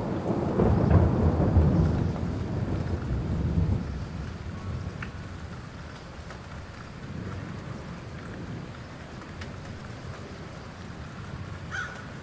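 Rain falling with a low roll of thunder over the first few seconds that dies away, leaving a steady patter of rain.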